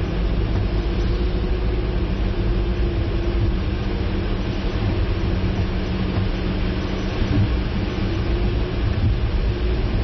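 A car driving along: a steady engine hum over a low rumble of road and wind noise.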